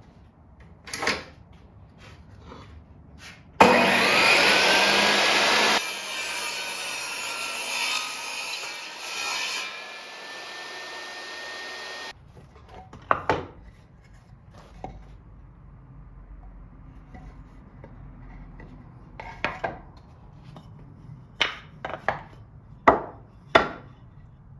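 Woodworking tools on wood: a stretch of loud continuous tool noise with a slowly rising whine that cuts off suddenly, then several separate sharp knocks on wood near the end.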